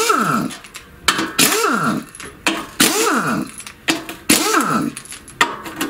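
Pneumatic impact wrench undoing the crankcase cover bolts on a walk-behind tractor engine. It goes in short bursts about once a second, each dying away in a falling whine as the tool spins down.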